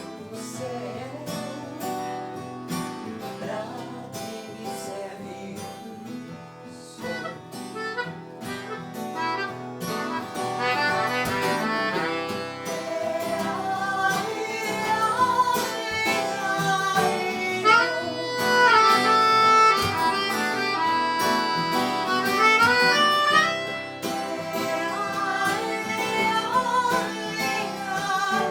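Music: acoustic guitar playing, with a melody line over it that comes in more strongly about ten seconds in and grows louder.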